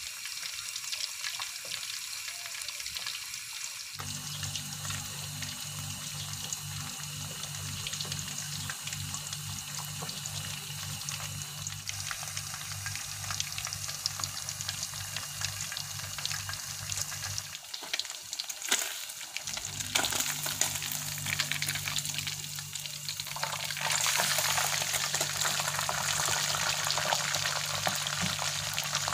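Nile tilapia deep-frying in hot oil in a wok: a steady crackling sizzle of bubbling oil, which grows louder about three quarters of the way through.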